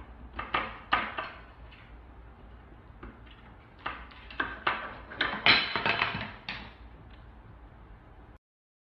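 Wooden kitchen cabinet door rattling and knocking against a plastic child-safety lock on its handles as a cat pulls at it: a string of irregular clicks and knocks, thickest and loudest about four to six seconds in.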